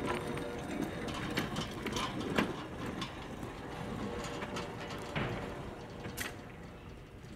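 A train rolling along its track, with a run of irregular clicks and rattles from the wheels and rail.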